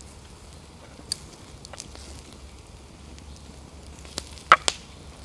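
Metal spoon clicking and scraping against plates as roast pork is served: a few sharp clinks, the loudest about four and a half seconds in, over a low steady hum.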